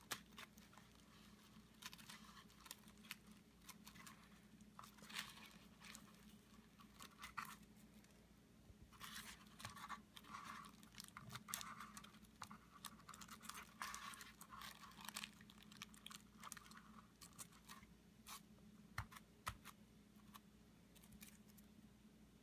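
Faint snipping of scissors cutting thin plastic bubble wrap, with the plastic crinkling in irregular spurts, over a low steady hum.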